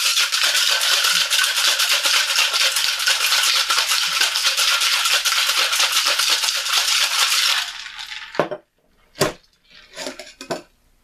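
Ice rattling fast and hard inside a Boston shaker, a mixing glass seated in a metal tin, being shaken to mix a margarita. The rattle stops at about eight seconds, and a few separate knocks follow as the shaker is handled.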